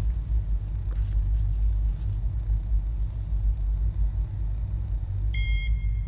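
Steady low rumble with a couple of faint clicks, and a short electronic beep about five seconds in.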